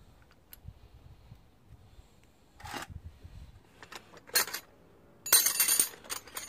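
Loose steel wheel bolts clinking together as they are handled: a few short clinks, then a louder jingling rattle near the end.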